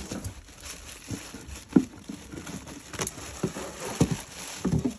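Rustling and scattered taps from handling foil trading-card booster packs, with a few sharper knocks about two, three and four seconds in.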